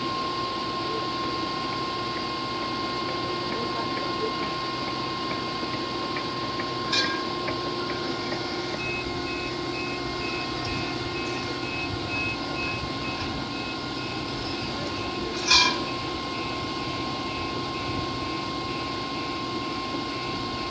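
Steady machine running with a constant hum, joined about a third of the way in by a faint high beep repeating about twice a second. Two short sharp squeaks or clanks stand out, the louder one about three quarters of the way through.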